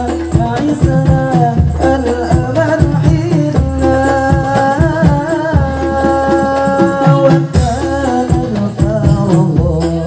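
Hadroh ensemble performing a sholawat: a male lead singer holds long, ornamented notes into a microphone over the steady beat of rebana frame drums.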